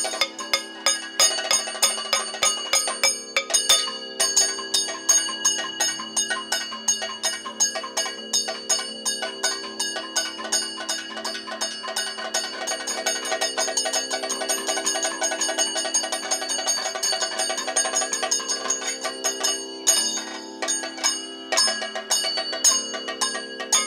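Kathakali percussion interlude: chenda and maddalam drums played in fast, dense strokes, with the ringing metal of the chengila gong and ilathalam cymbals, over a steady drone.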